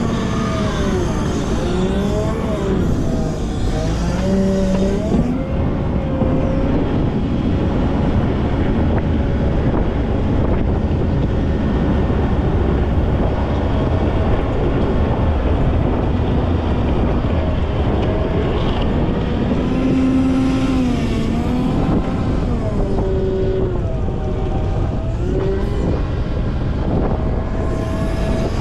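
Volvo L90F wheel loader's diesel engine running under load, its pitch repeatedly rising and falling as it revs up and eases off while the machine works the snow.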